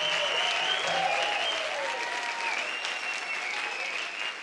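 Audience applauding, with cheers and whistles gliding over the clapping; the applause slowly dies down.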